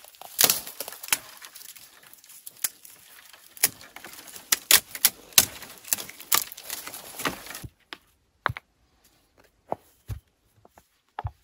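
Dry birch bark being peeled and torn from a fallen birch tree: irregular sharp cracks and snaps over a light rustle. The rustle cuts off abruptly about eight seconds in, leaving a few scattered clicks.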